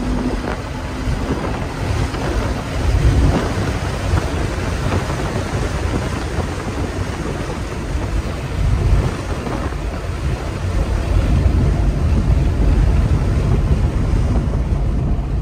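Steady rush of wind and road noise inside a moving 1995 Porsche 911 Carrera 4 cabriolet with the windows down, heaviest in the low end. A steady engine tone drops away about half a second in.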